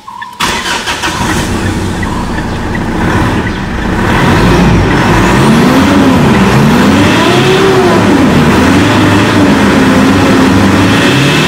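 Mitsubishi Montero Sport's 2.5-litre four-cylinder common-rail turbodiesel starts and is revved in Park. It grows louder about four seconds in, then its pitch rises and falls several times with each blip of the throttle. Even ticking from the hazard-light relay is heard in the first few seconds.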